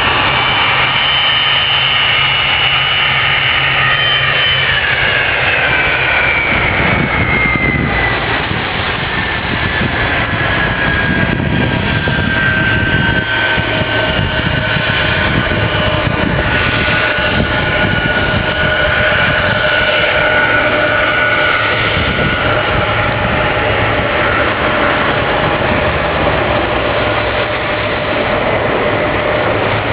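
Jet engines of a Boeing 767-400 running at high power, with a constant rush and a high whine. The whine glides down in pitch over several seconds and then holds steady.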